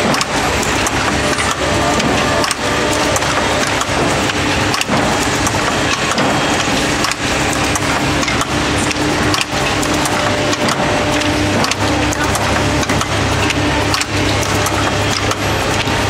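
Vibratory bowl feeder running with a steady hum while the small connectors rattle in the bowl, over irregular wooden clacks and knocks from the rail-and-connector fitting machine.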